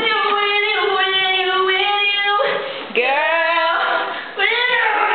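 A woman singing alone without accompaniment, in long held notes. The first note lasts about two and a half seconds, and then come two shorter phrases that each begin with an upward slide.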